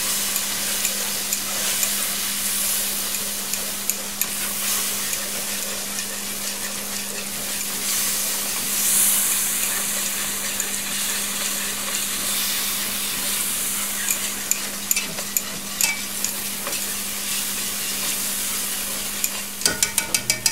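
Wire whisk stirring a simmering flour-and-stock gravy in a metal skillet: a steady sizzle with the whisk scraping and clicking against the pan. A quick run of sharper clicks comes near the end.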